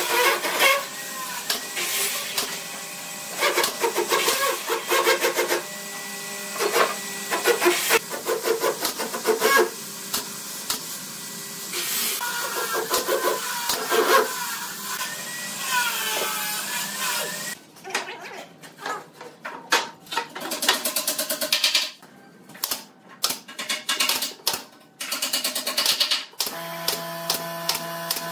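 Makita 18V cordless impact driver driving screws into pallet-wood framing in repeated bursts of rapid hammering, with short pauses between screws. Near the end a drill runs with a steadier whine.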